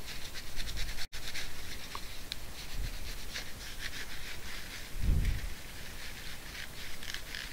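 Paper tissue rubbing against a TV remote's circuit board, wiping it clean with rubbing alcohol: a run of short scrubbing strokes, with a dull bump about five seconds in.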